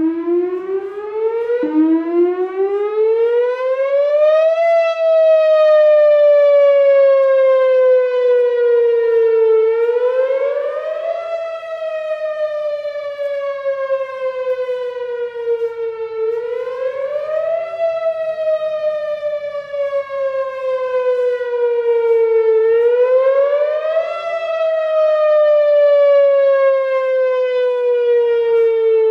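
Whelen WPS4004 electronic outdoor warning siren sounding a wail with a rich, buzzy tone. It climbs from a low pitch at the start, then cycles through a quick rise over about a second and a half and a slow fall over about five seconds, repeating roughly every six and a half seconds.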